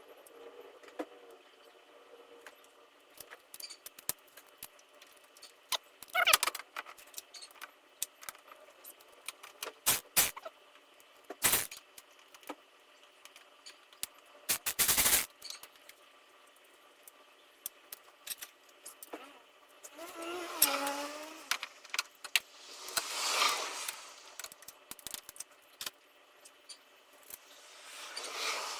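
Hand tools working on engine hardware: scattered sharp metal clicks and knocks, a short burst of rapid clicking about halfway through, and two longer rattling, scraping stretches later on, as bolts on the timing cover are run in and tightened.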